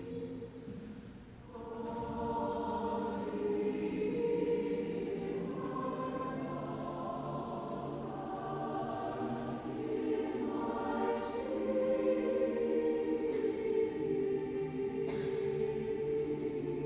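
Choir singing slow, sustained chords. A short pause about a second in, then the next phrase begins.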